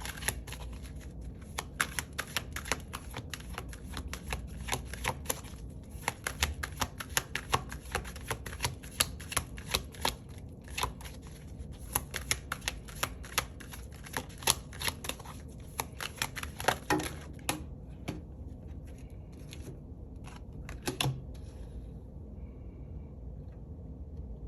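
Tarot cards being shuffled by hand: a fast run of card flicks and slaps that thins out to a few scattered ones in the last several seconds.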